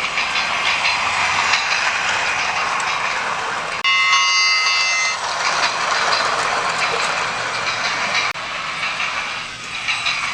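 Battery-powered toy train running around its track, its motor and wheels making a steady whir. About four seconds in, a brief electronic sound effect of several steady tones plays from the train's speaker for just over a second.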